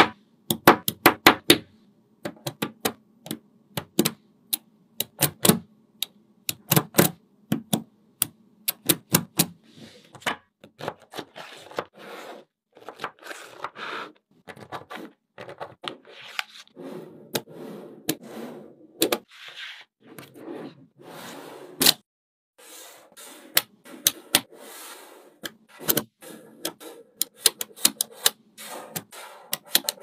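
Small magnetic balls clicking sharply as strips of them snap onto a magnetic-ball model, in quick runs of clicks, with softer sliding and scraping of ball pieces across the table between the runs.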